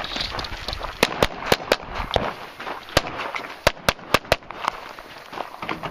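A string of about ten gunshots from a competitor's firearm, fired in quick pairs and then a fast run of four shots a little after the middle. Each is a sharp crack with a short echo.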